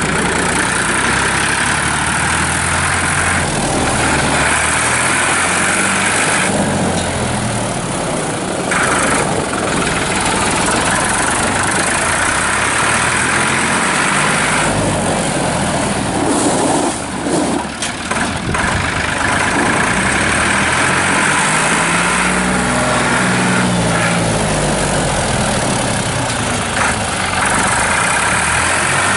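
New Holland 3430 tractor's three-cylinder diesel engine running as the tractor is driven about, its engine speed rising and falling several times.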